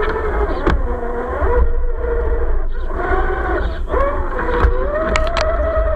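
Electric motor and gearbox of an RC model Jeep Gladiator crawler driving off-road, its whine rising and falling in pitch as the throttle changes. A few sharp clicks come through, about a second in and twice near the end.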